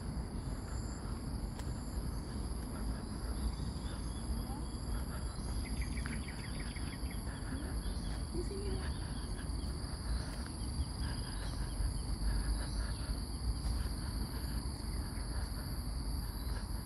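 Insects droning steadily in a high, even two-tone chorus over a low rumble. A short trill of quick chirps, likely a bird, comes about six seconds in.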